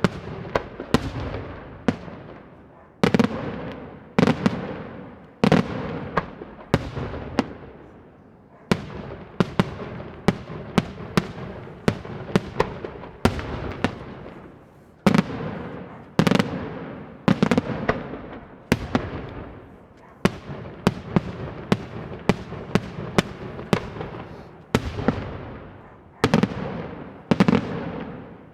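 Daytime fireworks display: a rapid, continuous series of sharp bangs from bursting shells, coming in clusters of several a second, each bang echoing away.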